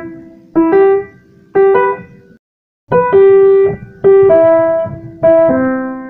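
Piano music: a run of struck chords, roughly one a second, each ringing and dying away, with a short break about two and a half seconds in.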